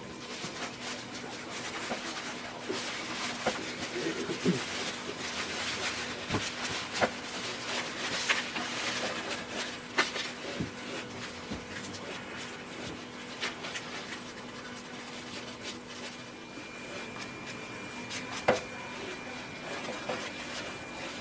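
Brush working oil paint onto canvas: a steady scratchy rubbing of bristles over the surface, broken by scattered light clicks, the clearest about 18 seconds in. A faint steady hum sits underneath, and a thin high tone comes in near the end.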